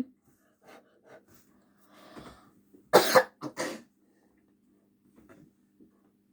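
A person coughing about three seconds in: one loud cough followed quickly by two shorter ones.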